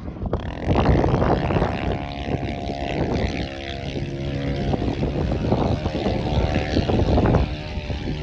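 Quad bike (ATV) engine running hard, its pitch and loudness swelling and dropping over and over as it is throttled.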